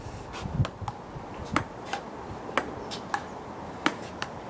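Table tennis ball clicking in a rally: sharp clicks as the ball bounces on the table and is struck by the paddles, about one every half second to a second.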